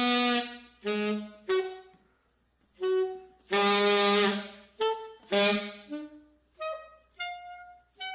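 Solo alto saxophone, unaccompanied, playing a free-jazz line of short, separate notes with gaps between them. There is a pause about two seconds in, then a longer held note, and higher, softer notes near the end.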